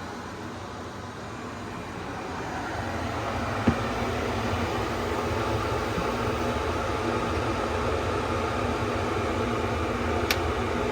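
Steady whooshing noise like a fan or air-conditioning unit, growing a little louder over the first few seconds, with a single click about four seconds in.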